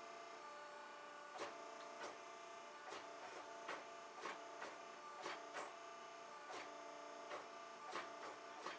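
Hydraulic forging press humming steadily while it squeezes hot 4140 tool steel in an upsetting die. About a dozen irregular sharp ticks and snaps come from the hot steel and its scale as it is pressed.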